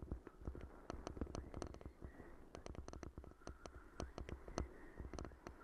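Bicycle rattling over a rough, muddy dirt track: frequent irregular clicks and knocks over a steady low rumble of tyres on the ground.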